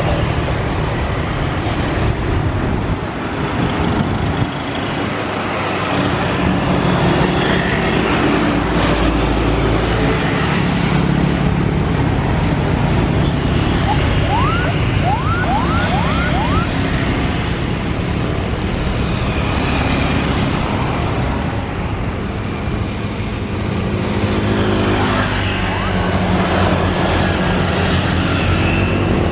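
Road traffic with vehicle engines running steadily. About halfway through there are five quick rising chirps.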